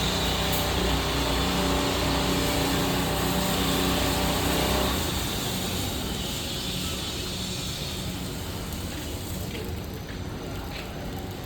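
Matsumoto MGP 40 portable fire pump's engine running steadily, then cutting off suddenly about five seconds in. A fainter hiss continues after it stops.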